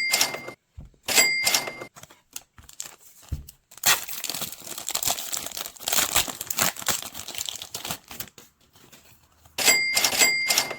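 Foil Pokémon card booster pack wrapper being torn open and crinkled, a few seconds of crackly rustling in the middle. Short bursts with a bright ringing tone come at the start and again near the end, three in quick succession.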